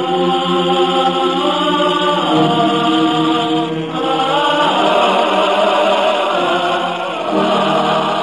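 Background music: voices chanting in long held notes over a steady low drone.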